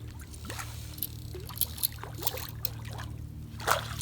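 Water splashing and dripping as a hooked redfish is worked to the boat, with one louder splash near the end, over a steady low hum.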